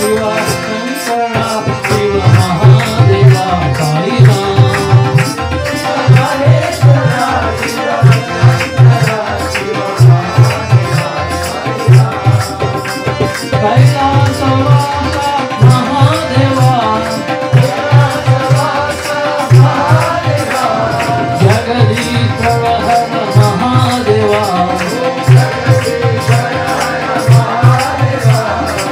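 A devotional bhajan: a group singing over a harmonium, with a hand drum playing quick groups of deep strokes and hands clapping along.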